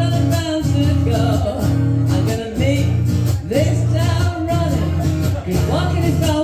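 Live band playing a song: guitar over a steady beat, with a voice singing the melody.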